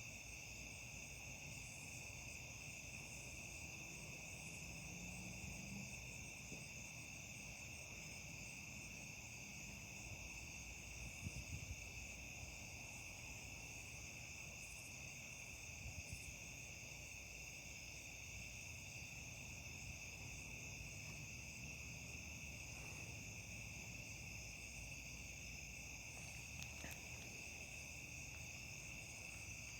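Steady night chorus of crickets and other insects, several high pitches layered and unbroken. A few faint low knocks come about eleven and sixteen seconds in.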